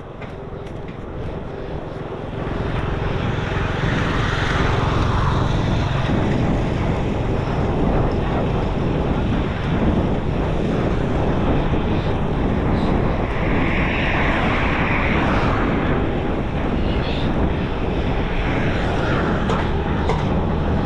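Road and wind noise while cycling along a main road with traffic: a steady, loud rush with a low rumble that swells about two seconds in.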